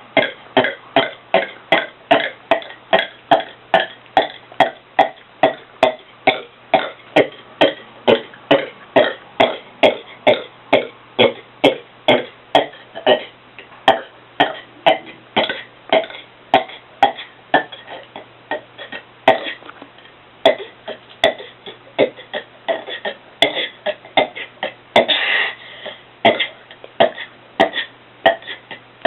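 A man burping over and over in rapid succession, about one and a half short burps a second, with one longer burp about 25 seconds in.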